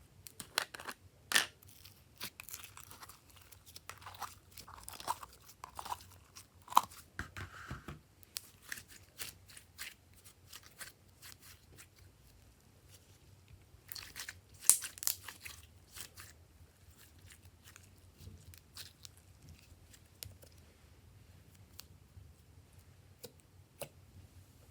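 Glossy slime being squished and stretched by hand, making a run of sharp crackles and pops. They come thickest in the first eight seconds and again about fifteen seconds in, then thin out.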